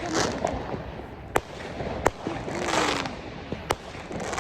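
Fireworks going off: hissing, crackling bursts broken by sharp bangs, one about a second and a half in, one at two seconds and one near the end.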